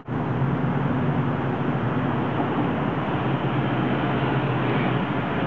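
Steady street traffic noise with a continuous low engine hum.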